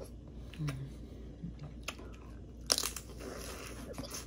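Boiled crawfish being peeled and eaten by hand: scattered sharp cracks of shell breaking, with a louder cluster of cracking and crunching a little under three seconds in.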